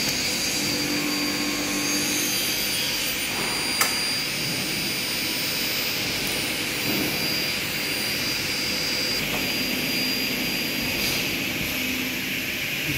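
Steady hum and hiss of running workshop machinery, with one sharp click about four seconds in.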